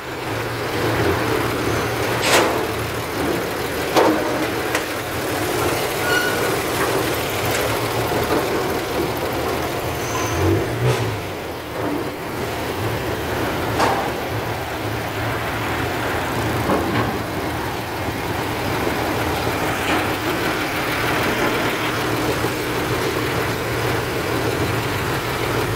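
Isuzu Rocky six-cylinder diesel engine of a dump truck running steadily, powering the hydraulic pump that tips the dump bed to unload sugarcane. A few sharp knocks stand out against it, about two seconds in, again at four seconds and near the middle.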